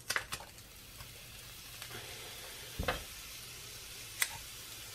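Minced garlic sizzling in a hot skillet, the sizzle building as the garlic goes in. A few light clicks and a thump about three seconds in.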